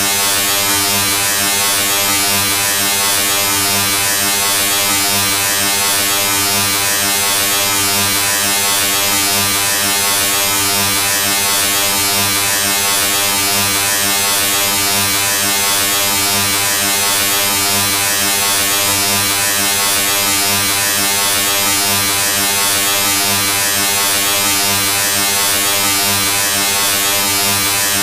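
A steady, unchanging electric buzz: a low hum with many evenly spaced overtones over a constant hiss.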